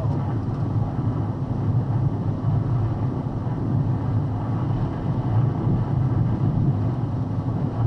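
Box truck's cab noise while driving: a steady low engine and road rumble, with wind buffeting the truck.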